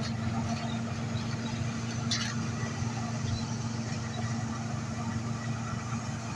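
Old John Deere combine harvester's engine running steadily with a constant low hum, with a short rattle about two seconds in.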